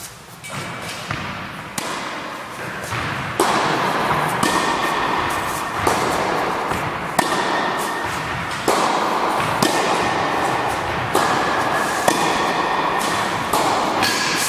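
Tennis rally: racquets striking tennis balls and the balls bouncing on a wooden floor, a sharp pop roughly every second or so, echoing in a sports hall.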